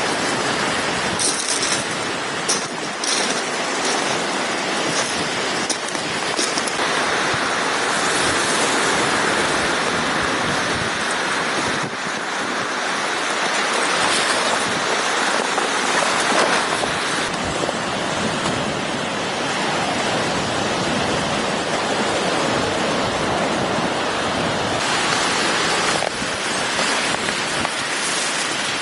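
Loud steady rushing noise of wind and water, with a few short crackles in the first three seconds.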